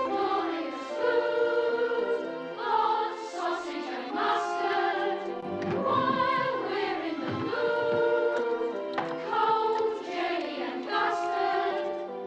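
Music with a choir singing, several voices holding long notes together.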